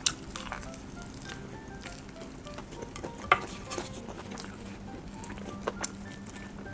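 Close-miked biting and chewing of a crumb-coated fried chicken drumstick: scattered crisp crunches and mouth clicks, with a sharp crunch at the start and the loudest about three seconds in.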